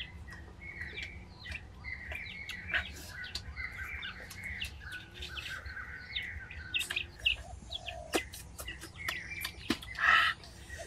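Small birds chirping over and over in short repeated notes, with scattered sharp clicks and a brief louder noisy burst near the end.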